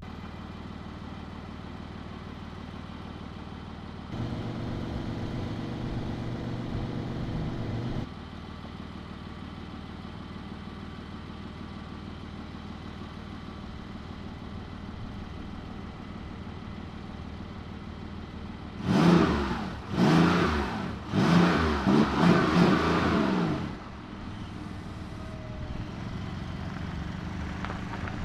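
2025 Porsche 911 Targa 4 GTS's 3.6-litre flat-six engine idling steadily. It holds a higher, louder idle for about four seconds early on, then is blipped in several quick, sharp revs that rise and fall before it settles back to idle.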